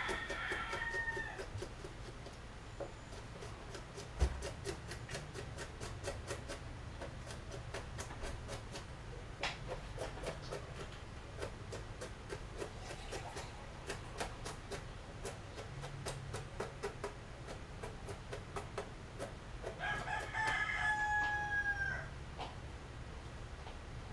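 A kitchen knife mincing garlic on a cutting board in a steady run of quick strokes. A rooster crows twice, once at the start and again, louder, near the end. There is a single low thump about four seconds in.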